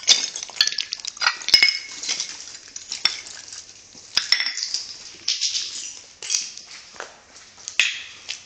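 Irregular crunching and sharp clinking of footsteps over scattered debris, with brittle pieces knocking together at uneven intervals.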